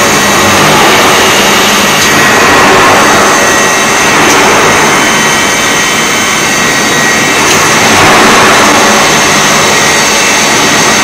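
Loud, steady industrial machinery noise of a steel pipe mill: a dense, even hiss with a few thin steady whining tones above it.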